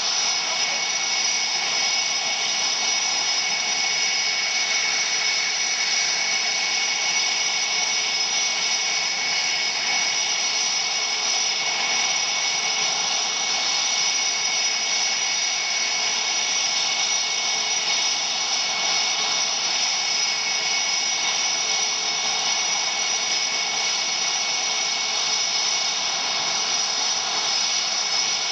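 Twin General Electric F404 turbofans of a CF-18 Hornet fighter idling: a steady, unchanging high-pitched jet whine over a rush of noise.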